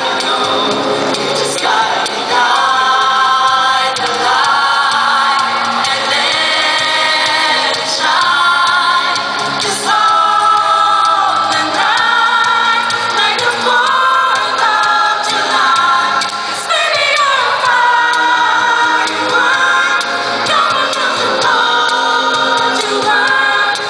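Mixed choir of women and men singing together in harmony, holding chords that change every second or so.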